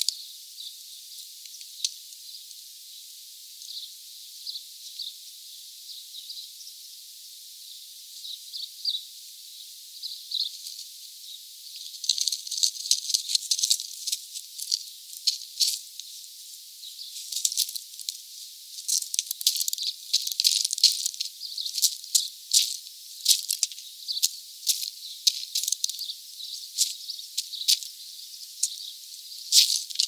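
Birds at a feeder: faint high chirps at first, then from about twelve seconds in a busy run of sharp clicks and rattles.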